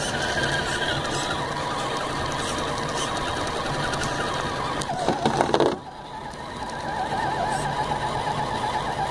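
Axial SCX10 RC crawler's electric motor and gear train whining as it drives, the pitch wavering up and down with the throttle and terrain. About five seconds in, the sound gets louder with a falling pitch, then drops off suddenly and picks up again a second or so later.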